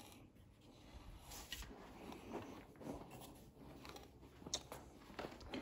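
Near silence: room tone with faint scattered rustles and small clicks.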